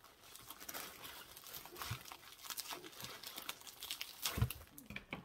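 Packaging being rustled and crinkled by hand while a parcel is unwrapped, with a couple of soft knocks.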